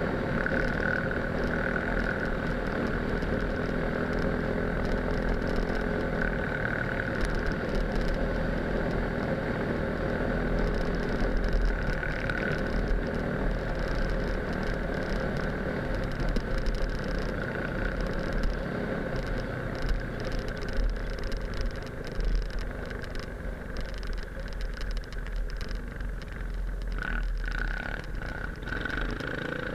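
Enduro motorcycle engine running at a fairly steady speed, heard from on the moving bike, with wind rumbling on the microphone.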